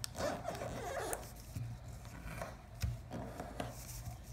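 Origami paper being folded and creased by hand on a wooden table: soft rustling and small taps, with a sharper knock a little under three seconds in, over a steady low hum.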